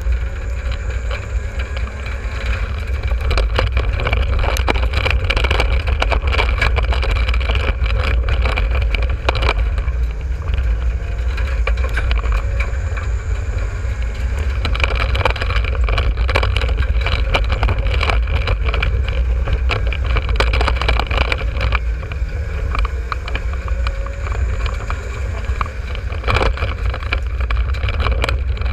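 A race car running on a dirt track, heard from inside its stripped cockpit: loud, steady engine and drivetrain noise over a heavy low rumble, with frequent short knocks and rattles.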